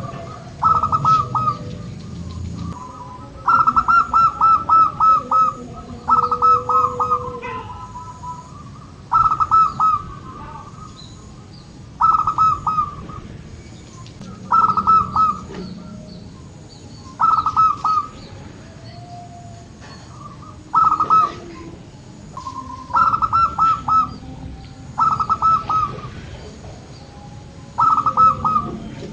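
Zebra dove cooing: a dozen or so short phrases of quick staccato notes, a couple of seconds apart, with faint gliding bird notes between them.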